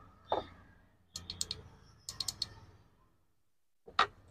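Sharp, small plastic clicks from handling a portable rechargeable juice blender and its spare battery: a knock, two quick runs of about four clicks, then one louder click near the end as the blender's power button is pressed.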